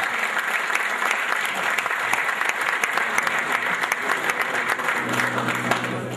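Audience applauding, a dense steady clapping of many hands. Music begins underneath about five seconds in.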